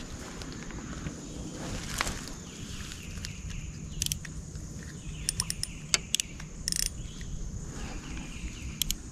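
Outdoor countryside ambience: a steady high-pitched insect drone over a low rumble, with a few short, sharp chirps or clicks scattered through it.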